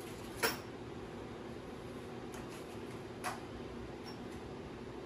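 Two light clicks of hard parts knocking together, about half a second in and again about three seconds in, as wagon wheels and hardware are handled, over a steady low room hum.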